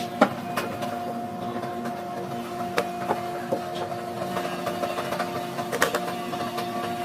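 An electric motor running steadily with an even hum, with scattered sharp clicks and knocks over it.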